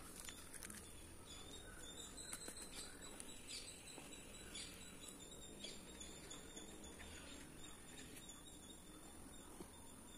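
Faint, scattered small crackles and clicks of dried coriander seeds being pressed and rubbed under a palm on a cloth-covered wooden board, splitting the seeds for sowing. A faint steady high-pitched whine runs underneath.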